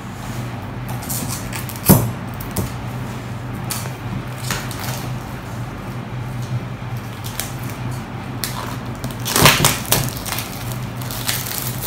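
Clear plastic shrink wrap being torn and peeled off a cardboard phone box, with scattered crinkling rustles, a sharp tap about two seconds in, and a louder burst of crinkling near the end, over a steady low hum.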